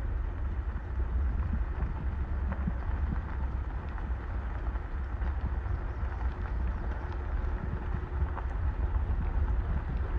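A vehicle driving along a back road: a steady low rumble with many small scattered knocks and rattles.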